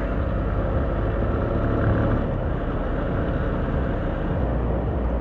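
Motorcycle riding at a steady speed: engine running under an even rush of wind and road noise.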